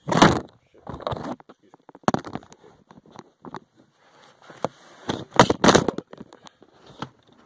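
Handling noises in a car's interior: a few clunks and rustles as parts and a cable are handled, the loudest right at the start and around five and a half seconds in.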